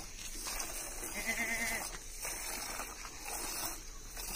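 A goat bleats once, a short wavering call about a second in, over the steady hiss of milk squirting from a goat's teats into a steel pail during hand-milking.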